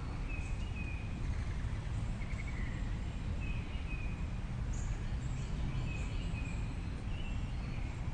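Outdoor ambience: scattered short bird chirps, with a brief trill about two seconds in, over a steady low rumble.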